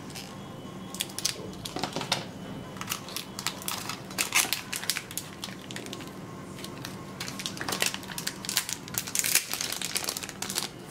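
Small clear plastic bag crinkling and crackling in the hands, in irregular bursts, as a pair of earphones is unwrapped from it.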